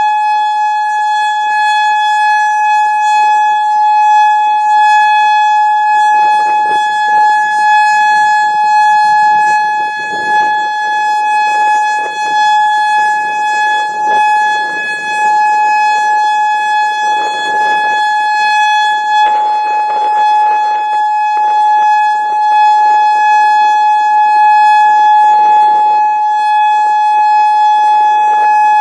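Federal Signal Modulator 4016 electronic outdoor warning siren sounding one steady, unwavering tone, the steady alert signal, during its test. Wind gusts buffet the microphone in irregular rushes.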